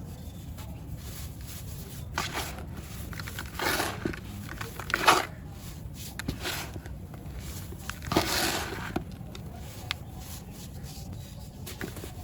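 Dry, crumbly lumps being crushed and breaking apart, about five separate crunches a second or so apart with a few small clicks, over a steady low hum.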